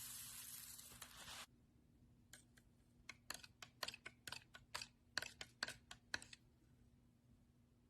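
Slime being squeezed and poked: a soft hiss that cuts off suddenly about a second and a half in, then a run of about a dozen sharp, irregular clicks and pops as air pockets in the slime burst.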